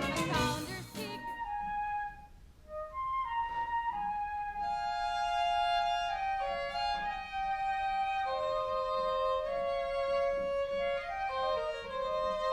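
Pit orchestra playing slow instrumental underscoring: long held notes moving in a gentle melodic line, starting after a brief moment of noise at the start.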